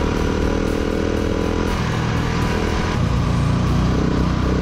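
Adventure motorcycle engine running steadily while riding off-road, its note shifting about three seconds in as the revs change.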